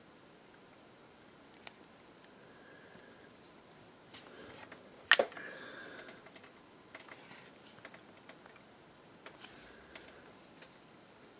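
Faint handling sounds at a painting desk: scattered small clicks and scratching, with one sharp knock about five seconds in, as the miniature on its holder is set down and the brush is worked in a wet palette.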